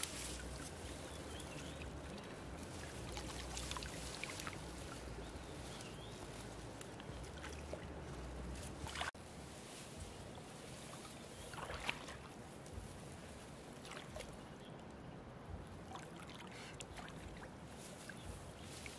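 Steady flow of shallow river water, with a few short rustles and small splashes as hands work through reeds and the shallows by the bank. A low rumble under the water drops away abruptly about nine seconds in.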